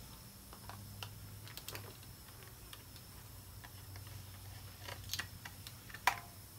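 Scattered light clicks and scrapes of a screwdriver working the screw of the plastic battery cover on a Squeakee balloon dinosaur toy, with one sharper click about six seconds in.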